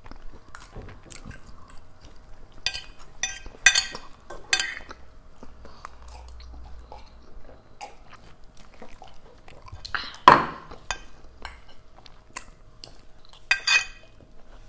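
Close-up chewing and eating noises picked up by a clip-on microphone, with forks clicking and scraping on plates; one louder, sharper noise comes about ten seconds in.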